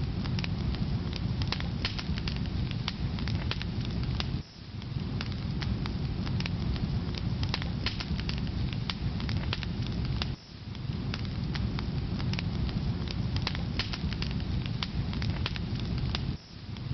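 Wood fire crackling in a fireplace: a steady low rush of burning, dotted with frequent sharp pops and snaps of the logs. The sound dips briefly three times, about six seconds apart.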